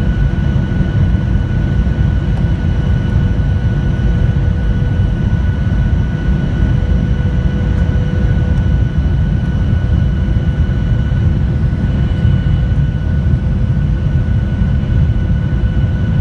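Cabin noise inside a Boeing 737-900ER heard from a window seat over the wing: a steady low rumble of airflow and CFM56 jet engines, with a few faint steady whines above it.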